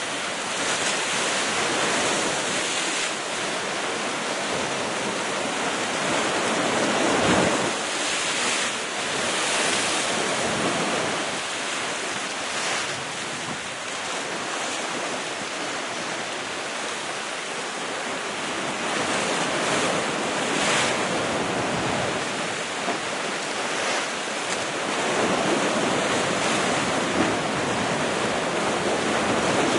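Sea waves breaking against cliff rocks: a continuous wash of surf that swells into louder surges every few seconds.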